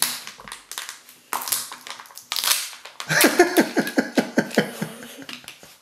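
Foil wrapper of a Kinder Joy egg being torn open and crinkled, in sharp crackling bursts. About three seconds in, a quick run of short pitched sounds, about five a second, which is louder than the crinkling.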